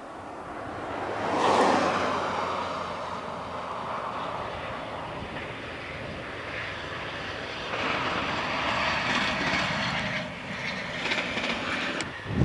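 Class 56 diesel locomotive running light, its V16 engine droning loudest about a second and a half in, then going on steadily and swelling again later. A sharp click near the end.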